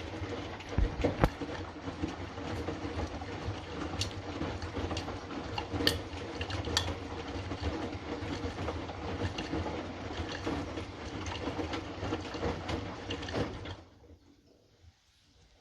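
Hotpoint washing machine tumbling its drum in the main wash of a Fastwash 60 programme: a steady motor hum and churning with a few sharp clicks and knocks, then the drum stops suddenly near the end.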